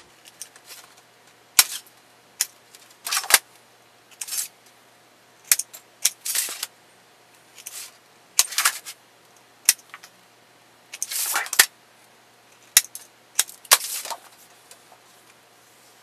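Hand snips notching the corners of a galvanized sheet-metal blank: about fifteen short, sharp snips and clicks at uneven intervals.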